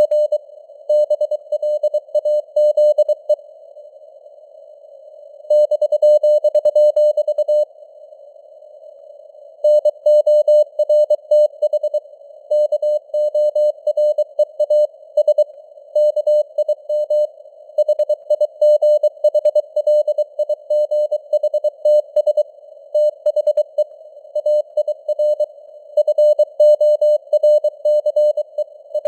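Morse code (CW) sent at 23 words per minute: a steady mid-pitched tone keyed on and off in dots and dashes over a hiss of simulated radio band noise. There are two longer pauses, about four and eight seconds in.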